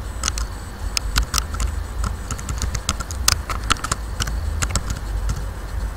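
Typing on a computer keyboard: quick, irregular key clicks, over a steady low hum.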